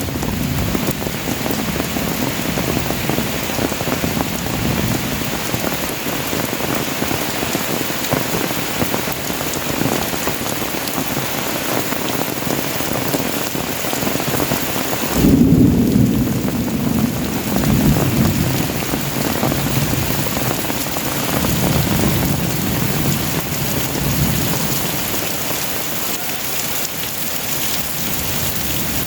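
Heavy tropical downpour falling steadily, with a low rumble of thunder swelling up about halfway through.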